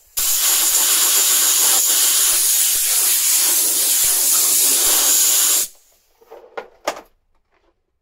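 Compressed air hissing steadily through an air chuck held on a motorcycle wheel's valve stem as the tire is inflated, for about five and a half seconds before cutting off suddenly. A few light clicks and knocks follow.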